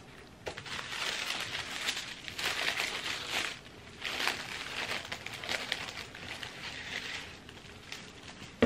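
Wrapping tissue paper crinkling and rustling as it is folded back by hand, in uneven handfuls, loudest around two and a half to three and a half seconds in.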